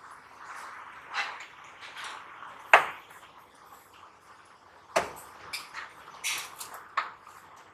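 Handling clicks and taps from small plastic and metal parts being worked by hand: about six sharp ones, the loudest about three seconds in, with lighter rattles between.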